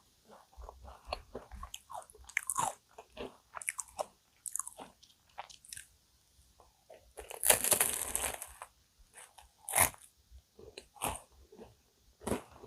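Close-miked eating of crunchy cookie-crust cream puffs: crisp bites and chewing with scattered small crackles, and a louder crunchy noise lasting about a second a little past the middle.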